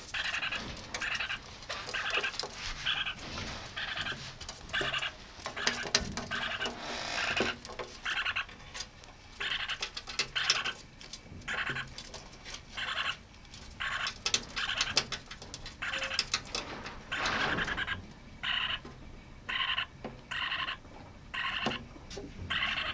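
A lineolated parakeet chick, about two weeks old, calls over and over, giving short raspy calls about every half second. Scattered sharp clicks and taps sound between the calls.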